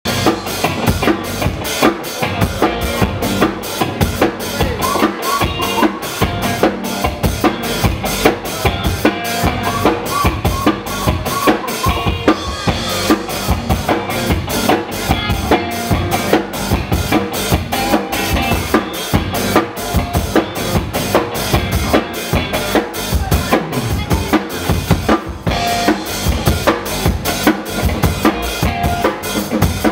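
Funk breakbeat music led by a drum kit playing a steady kick-and-snare beat, with a short melody line coming in now and then.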